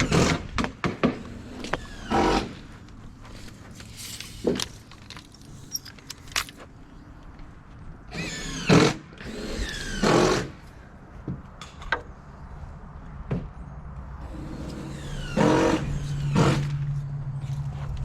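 Knocks, clatter and wobbling rings of aluminum trim sheet metal being handled and fitted, with a steady low hum starting late on.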